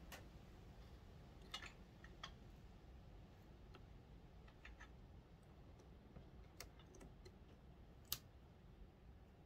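Near silence broken by a handful of faint, sharp metal clicks from circlip pliers and small steel parts being handled on a gear shaft in an open engine case, the loudest about eight seconds in.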